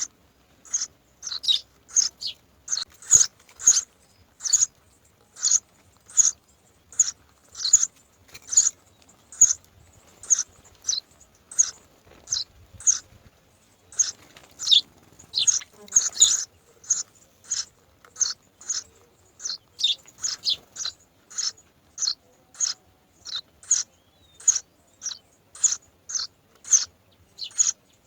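Bird chirping in a long, even series of short, high calls, each dropping quickly in pitch, about two a second.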